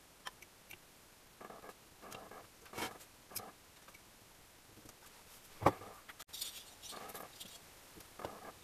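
Light metallic clicks and scrapes of engine parts being handled: a piston on its connecting rod and the finned cylinder being fitted over it. One sharp, louder knock comes a little past halfway, followed by a few quick clicks.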